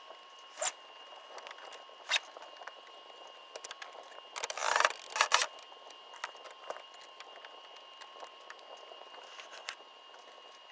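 Sailing line hauled through deck rope clutches and worked at a winch: irregular clicks and rasping of rope and fittings, with a loud cluster about halfway through.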